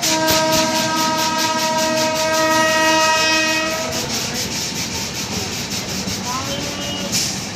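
An express train's locomotive horn sounds one long steady blast for about four seconds, over the rhythmic clickety-clack of wheels on rail joints as the train rolls slowly through the station. After the horn stops, the wheel clatter carries on, with a brief squeal near the end.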